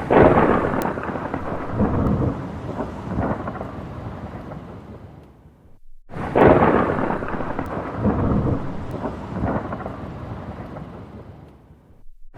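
Thunderclap rolling into a long rumble that fades away, then a brief silence and the same thunder again about six seconds in.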